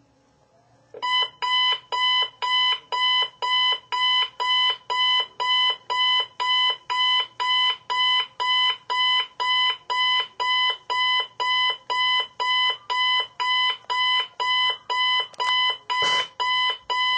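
Digital alarm clock beeping, a steady pitched beep about twice a second that starts about a second in and runs until just before the end. A brief knock comes near the end while the beeping is still going.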